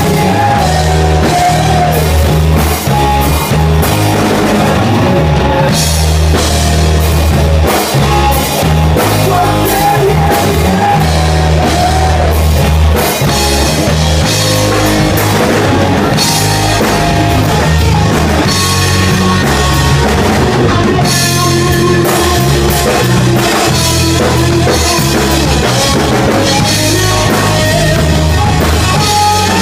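Rock band playing live: loud drums and heavy bass and guitar, with a singer's voice over them.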